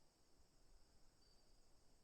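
Very faint summer forest ambience: a steady high-pitched insect drone, with one brief brighter note just past halfway.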